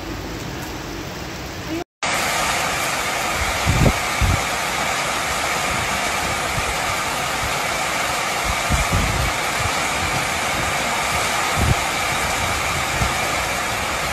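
Heavy rain pouring in strong wind: a loud, steady hiss, with gusts thumping on the microphone a few times. The first two seconds are quieter rainy street ambience, cut off abruptly.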